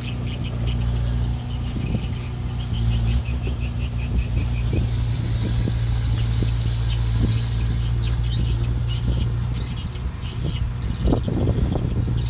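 Diesel engine of earth-moving machinery running steadily at a low pitch, with scattered clanks and knocks and a denser run of louder knocks near the end. Short high squeaks come and go over it.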